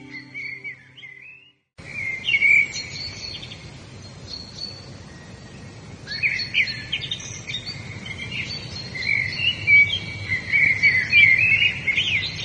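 Songbirds chirping and singing in quick, varied phrases and short trills over a steady background hiss. Soft instrumental music plays under the birds for the first second and a half, then cuts off with a brief silence before the birdsong carries on alone.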